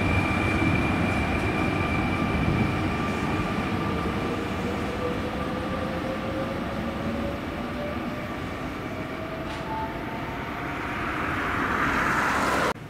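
Fertagus series 3500 double-deck electric multiple unit accelerating away, with steady high whines and a traction-motor whine that rises in pitch as the train noise fades. Near the end a broad rushing noise swells, then the sound cuts off suddenly.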